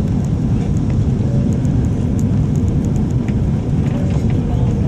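Steady, loud low rumble of a Boeing 777's engines and airflow heard from inside the passenger cabin during landing, with faint scattered rattling ticks.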